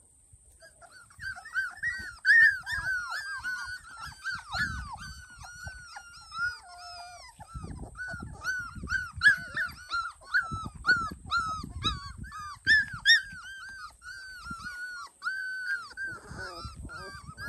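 Four-week-old Labrador retriever puppies whimpering and crying: a steady run of short, high-pitched squeaky cries, several a second, from more than one puppy, starting about a second in. The pups are unsettled, not yet sure what to do out on the grass.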